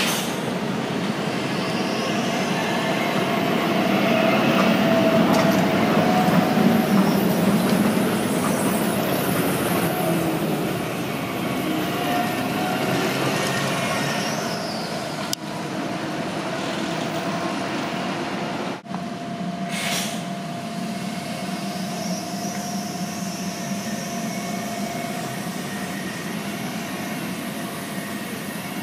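Translohr rubber-tyred tram running past and pulling in at a stop: steady rolling noise with a steady whine, loudest about five to eight seconds in, and a short hiss about twenty seconds in.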